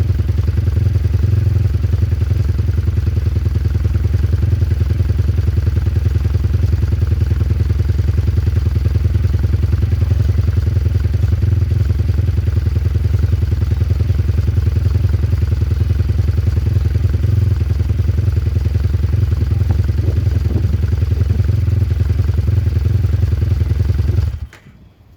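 Daytona single-cylinder four-stroke engine of a Venom X22 mini bike running steadily through a cut-down exhaust canister, its exhaust pulsing evenly, then shut off suddenly near the end.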